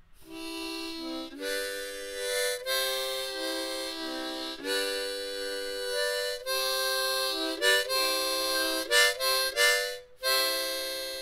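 Harmonica playing a short tune in chords: a string of held notes, then a run of quick short notes, a brief break and a final held chord near the end.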